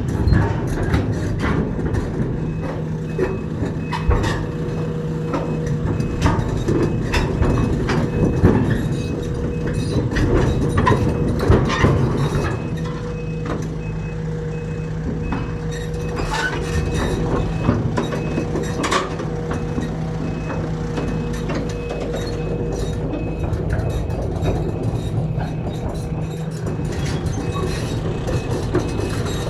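Backhoe's diesel engine running steadily under load, with scattered knocks and clanks from the digging and loading. From about three seconds in, a high beep repeats at an even pace, like a reversing alarm.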